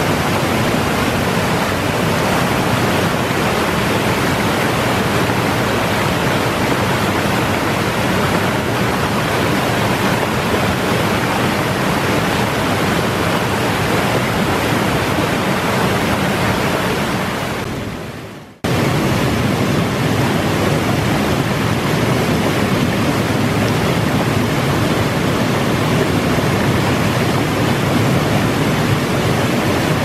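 Waterfall rushing loudly and steadily, its flow high in spring. About 18 seconds in the sound fades away and then comes straight back.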